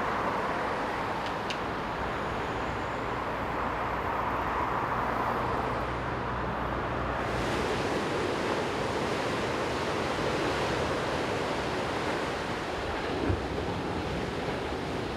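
Surf breaking on a beach: a steady wash of noise that turns brighter and hissier about halfway through.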